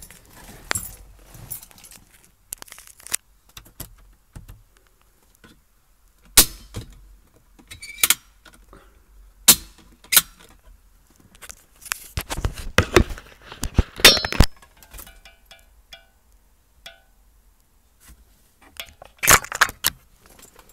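Irregular clicks, knocks and rubbing from handling a dash cam and its mirror mount, with handling noise on the recording device. A dense run of knocks comes about two-thirds of the way in and another near the end.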